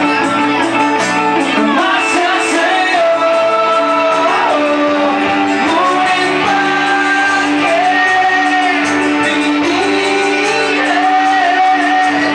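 Live acoustic band performance of a rock ballad: a voice singing long held, gliding notes over acoustic guitar, with the reverberant sound of a large room.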